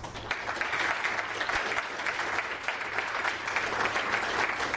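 Seminar audience applauding: many people clapping steadily, starting right after the speaker's closing thanks.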